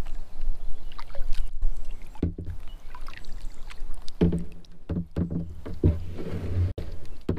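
Spinning reel being cranked with a low hum in spells, about two seconds in and again from about four seconds to near the end, among knocks and rubbing on a plastic kayak as a hooked northern pike is reeled in.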